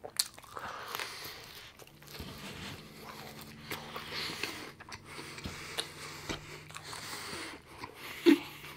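Close-miked chewing of McDonald's fries, with small crunches, lip smacks and wet mouth sounds at an irregular pace. A brief vocal sound from the eater comes near the end.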